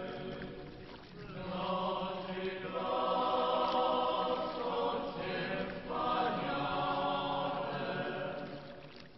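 Slow sung chant with long held notes, the pitch changing every second or two.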